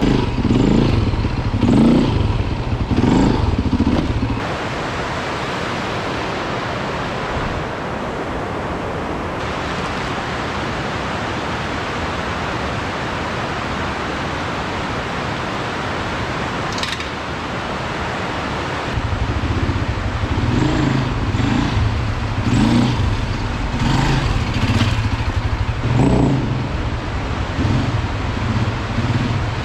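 Beta RR 450 four-stroke single-cylinder enduro engine running, its note rising and falling about once a second under bursts of throttle. For a long middle stretch the engine drops out and only a steady rushing noise is heard, before the engine comes back near the end.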